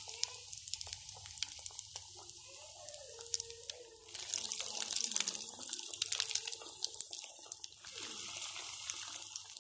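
Bread-crumb-coated potato patties deep-frying in hot oil: a steady sizzle thick with crackles, growing louder about four seconds in and easing slightly near the end.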